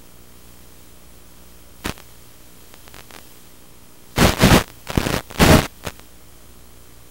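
Steady hiss of an analogue FPV video link's audio channel, broken by loud bursts of crackling radio static: one short burst about two seconds in, then a cluster of four or five a little past halfway.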